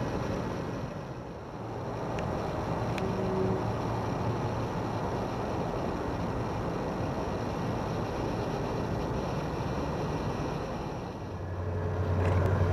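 Low, steady rumble of a diesel locomotive idling. Near the end a louder low rumble builds as an approaching train comes in.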